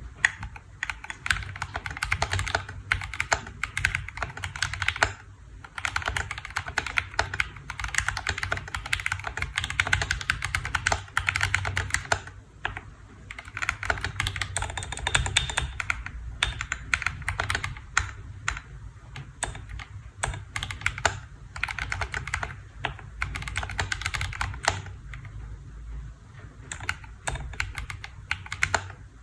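Typing on a KBDfans D65 mechanical keyboard: a fast, continuous run of keystroke clicks, broken by short pauses a few times.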